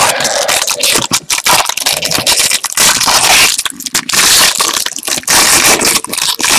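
Foil wrapper of a Bowman Draft baseball card pack crinkling and tearing as it is pulled open by hand: a dense, unbroken run of crackles.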